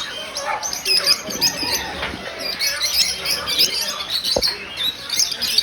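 Many small caged birds chirping and twittering at once, a dense overlapping chatter of short high calls. A single brief knock about four and a half seconds in.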